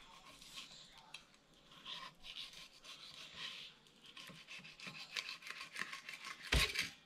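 Fillet knife scraping and slicing through a bluegill fillet on a wooden cutting board: a run of quick scratchy strokes, with one sharp knock near the end.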